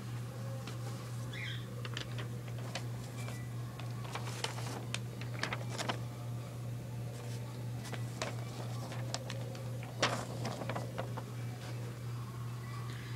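Handling noise: scattered light clicks and taps, with a sharper click about ten seconds in, over a steady low hum.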